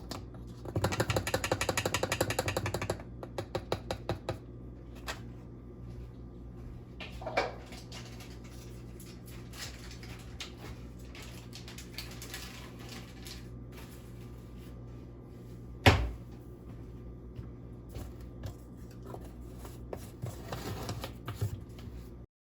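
Close kitchen handling sounds of containers and utensils: a quick run of clicks for about two seconds near the start, scattered taps and a clunk, one loud sharp knock about two-thirds of the way through, and a short rattle near the end before the sound cuts off.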